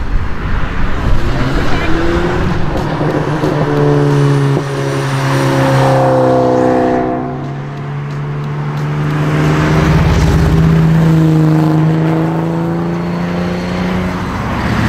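Car engines driving past at speed: a steady engine note that falls in pitch as one car goes by around the middle, then another engine note that swells and holds, rising slowly, before breaking up near the end.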